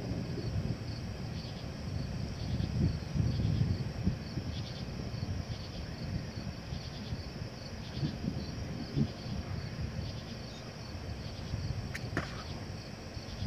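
Night insects chirping in a steady pulsing rhythm, over a low rumble that swells and fades. A brief higher sound cuts in near the end.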